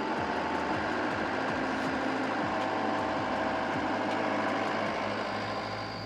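A motor running steadily, with several held tones and a slight drop in level near the end.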